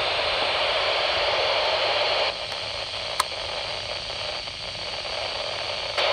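Handheld scanner's speaker hissing with static, squelch open on a weak 49.83 MHz signal. The hiss drops quieter about two seconds in as the BNC antenna connector is worked, with one sharp click near the middle, and comes back to full strength near the end.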